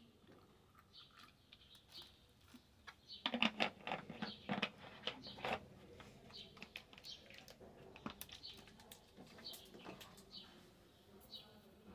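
Clatter and knocking of metal camp cookware as a stainless steel mug and its stand are set over a small alcohol stove, with birds chirping in the background.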